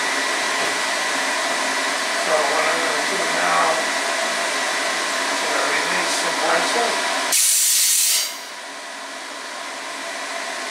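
GX CS4-I high-pressure PCP air compressor running steadily, then cutting off about seven seconds in with a loud hiss of compressed air released for about a second. A quieter steady running noise remains afterwards.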